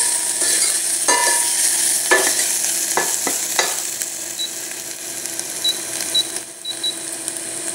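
Onions and garlic sizzling in ghee in a stainless steel pot, stirred with a metal spoon that clinks against the pot several times in the first few seconds.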